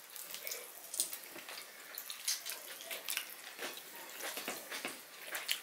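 Two people eating fried rice and chicken with their hands: wet chewing and lip-smacking sounds, coming as an irregular string of short clicks.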